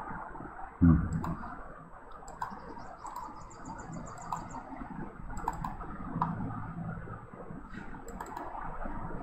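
Scattered computer mouse clicks over low room hum, with a single louder thump about a second in. A short, high, rapidly repeated chirping runs for about a second and a half near the middle.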